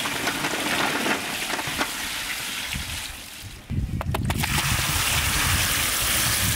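Water pouring from a pot into a large aluminium cooking pot full of green jolpai olives, splashing over them, with olives tumbling in from a basket during the first few seconds. Just under four seconds in a heavier, fuller pour begins and runs on steadily.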